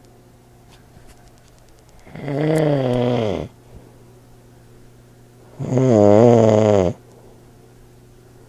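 An old man snoring loudly in his sleep: two long snores about three and a half seconds apart, each lasting over a second, the first sagging in pitch as it ends.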